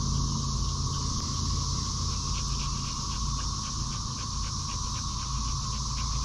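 Shepherd-mix dog panting quickly, about four to five breaths a second, over a steady high drone of insects.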